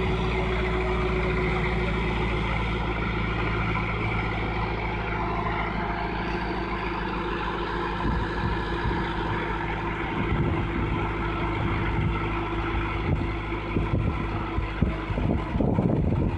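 Tractor engine running steadily, driving the hydraulic crane boom of a pole erection machine as it hoists a concrete pole on a chain. Irregular knocks and crackle come in about halfway through.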